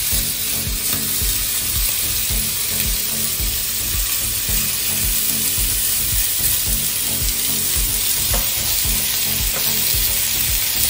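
Chicken breast fillets sizzling steadily on a hot ridged grill pan as a honey and soy sauce glaze is brushed over them.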